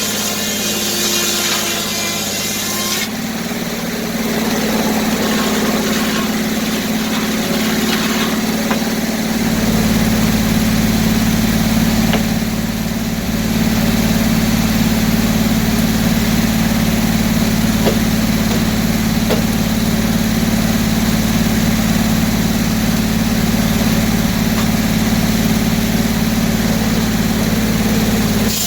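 Gas-engine-driven circular sawmill with a 48-inch blade running steadily. About three seconds in the sound changes, and from about nine seconds in it gets deeper and louder.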